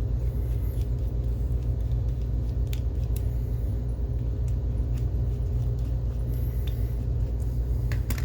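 Steady low background rumble, with scattered small clicks and taps as screws and plastic parts of a projector's colour-wheel assembly are worked loose by hand, a few clicks close together near the end.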